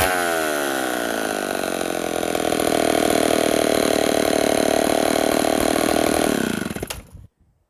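Loud Homelite 770D 95cc two-stroke chainsaw engine: the revs fall away to a steady idle over the first two seconds, then it is shut off about six and a half seconds in and dies out.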